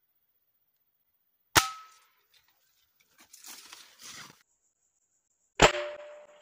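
Two air rifle shots about four seconds apart, each a sharp crack with a short metallic ring after it. Between them there is a quieter rustle of handling.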